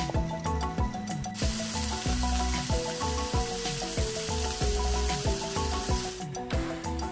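Background music with a steady beat; from about a second and a half in until about six seconds, green peas sizzle in hot oil in a frying pan.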